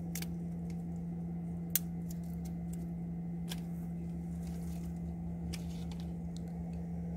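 Dry twigs and sticks being handled and snapped by hand, a scattering of short sharp cracks and clicks, one louder about two seconds in, over a steady low hum.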